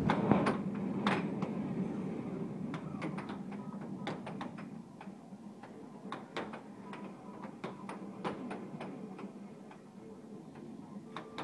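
Air hockey puck and mallets clacking in an irregular rally: sharp plastic knocks as the puck is struck and bounces off the table's rails, over a steady background hum.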